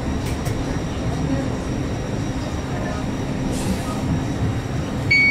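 Steady low rumble and hum inside the passenger cabin of a Stadler Citylink tram-train, with a short hiss a little past the middle. Electronic chime tones start right at the end.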